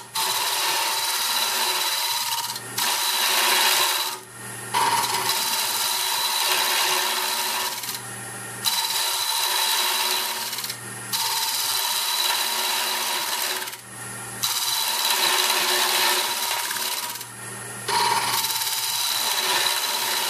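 Carbide cutter on a Jamieson boring bar cutting inside a spinning mesquite vessel on a wood lathe: a loud scraping cut in about seven passes of two to four seconds each, with brief pauses between, over the lathe's steady hum. The cuts are rounding off the inside near the vessel's shoulder.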